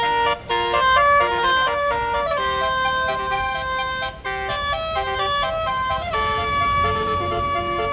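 A tour bus's basuri telolet horn playing a melody: a steady run of held notes that step up and down in pitch, with short breaks about half a second and four seconds in.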